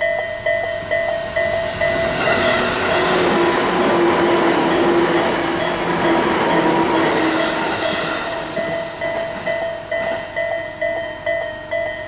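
Japanese level-crossing warning bell of the electronic Isesaki type, dinging about two and a half times a second. About two seconds in, an electric commuter train passes over the crossing, and its wheel and motor noise covers the bell until near the end, when the bell is heard again.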